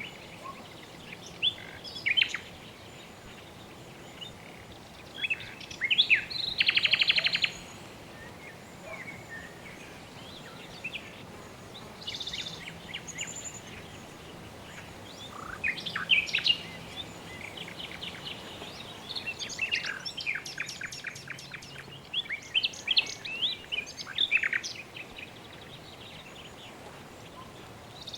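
Several birds chirping and calling over a steady background hiss. A rapid trill about six seconds in is the loudest call, and there are bursts of quick chirping around sixteen and twenty to twenty-five seconds in.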